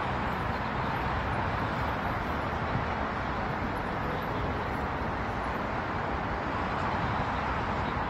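Steady hum of distant road traffic.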